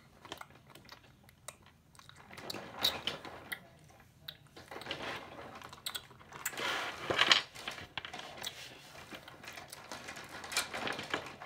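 Scattered light clicks and taps of a plastic toy Tyrannosaurus being handled and stepped across a hard floor, with some rustling handling noise in between.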